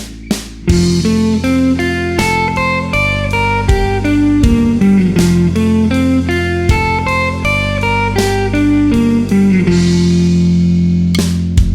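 Guitar playing alternate-picked major and minor arpeggio runs, single notes in quick succession, over a backing track with bass and drums. A few evenly spaced clicks lead in before the notes start, under a second in.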